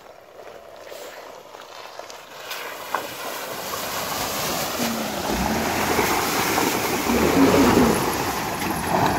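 Ford F-150 pickup truck driving through a shallow muddy puddle, its tyres splashing through the water and its engine running as it comes closer. The splashing and engine sound grow steadily louder and peak near the end as the truck passes close by.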